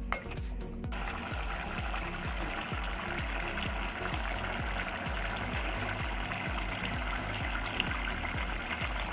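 Pot of beef stew bubbling steadily, a watery hiss that sets in about a second in, under background music with a steady low beat. A single metal clink right at the start.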